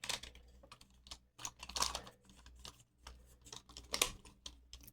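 Irregular clicks and light rattling of a lock's small metal parts being handled and fitted back together, with louder clacks at the start, about two seconds in and about four seconds in.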